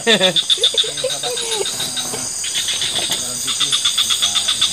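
Night insects chirping in a fast pulsed train, about eight to ten chirps a second, over a steady high-pitched hum. The chirping drops out for about a second midway, then resumes.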